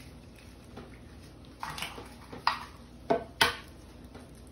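Eggs being cracked by hand over ceramic ramekins: four short, sharp taps and clicks of eggshell, the loudest about three and a half seconds in.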